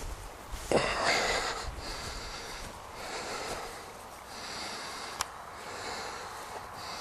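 A person breathing hard close to the microphone, with a loud rush of breath about a second in and then a hiss that swells and fades every second and a half or so. There is a single sharp click about five seconds in.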